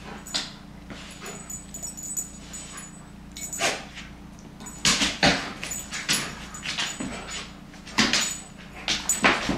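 Dog playing with a giant plush teddy bear: irregular scuffles and thumps as the toy is nosed, pulled and shoved across the floor, with the dog's own vocal noises mixed in. The loudest clusters come about five seconds in and again near the end.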